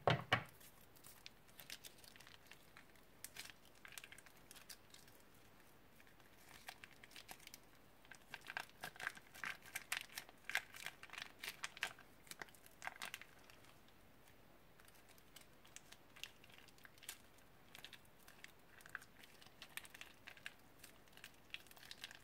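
Clear plastic piping bag crinkling as it is squeezed and scrunched by hand, in crackly bursts that are thickest around the middle. A thump right at the start.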